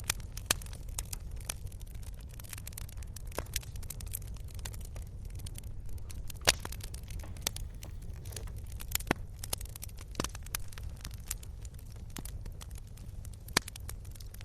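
Wood fire crackling: irregular sharp pops and snaps over a low, steady rumble, with one louder pop about six and a half seconds in.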